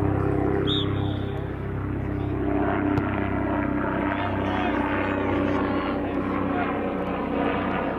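A steady low engine drone, with faint voices from the field behind it.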